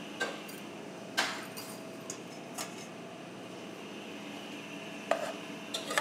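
Metal spoon and small metal cup knocking and clinking against an aluminium saucepan as ingredients are tipped in and stirred: a handful of separate knocks over steady background noise.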